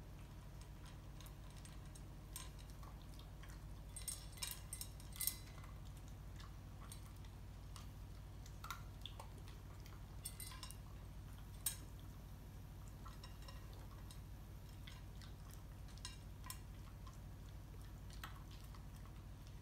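Shiba Inu eating from a stainless steel bowl: scattered clicks and clinks of teeth, tongue and food against the metal, with a quick cluster about four to five seconds in and a sharp clink near twelve seconds, over a steady low hum.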